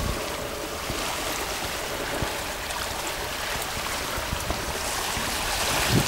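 Shallow sea water washing and lapping among mangroves, a steady hiss with no distinct splashes, as the tide seemingly comes in.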